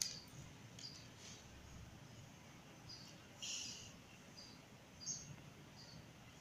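Faint, short high bird chirps repeating every half second to a second, with a louder chirp about halfway through, over quiet background hiss. A light click comes at the start.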